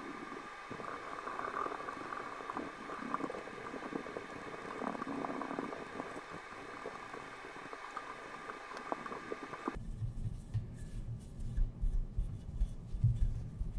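Cloth rubbing tarnish-removing polish over a silver-plated creamer, a soft wet squishing and rubbing with small clicks. About ten seconds in it changes abruptly to duller, lower rubbing with a few soft bumps.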